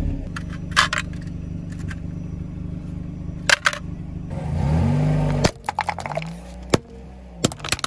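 A car engine idling low and steady, with a few sharp cracks, then revving briefly about five seconds in. After that the engine note drops back and a string of sharp cracks and snaps follows as the tyre rolls onto a hard plastic cup.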